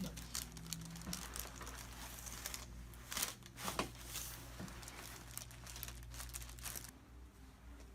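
Crinkling and rustling as the patient shifts on the chiropractic table, with two sharper crackles a little past three seconds in, over a steady low hum.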